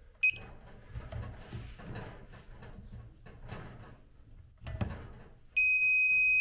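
Electronic beep of a digital torque wrench: a short chirp near the start and knocks of the tool on the nut, then a steady high beep of nearly two seconds near the end, signalling that the primary gear drive nut has reached the set 39 newton metres.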